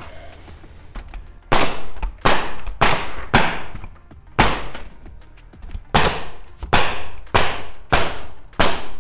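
Pneumatic Bostitch coil roofing nailer firing about ten times, a sharp crack roughly every half second to second with a pause in the middle, driving nails through the metal pipe flashing's base into the roof.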